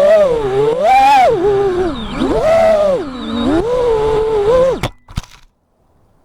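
FPV quadcopter's motors and propellers whining, the pitch rising and falling with the throttle. About five seconds in the whine cuts off abruptly, followed by a couple of sharp clicks and then near silence.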